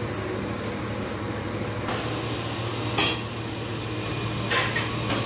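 Metal kitchen utensils and cookware clinking over a steady low hum, with scattered light clicks and one sharp metallic clink about three seconds in.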